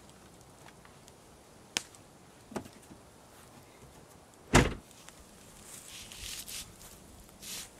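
Hyundai Tucson's rear tailgate swung down and slammed shut with one heavy thump about halfway through, after a couple of light knocks of gear being handled in the boot. Rustling follows near the end.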